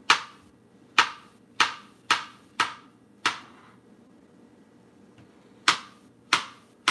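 Kitchen knife slicing a peeled banana into rounds, the blade knocking on a plastic cutting board with each cut: a run of sharp taps, a pause of about two seconds, then more taps near the end.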